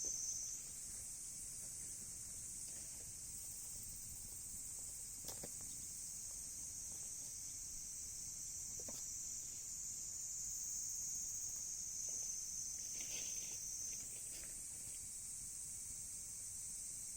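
A steady, high-pitched chorus of insects, crickets or similar, that shifts pitch about a second in and again near the end. A few sharp pops from the burning wood of a campfire come through, the clearest about five and nine seconds in.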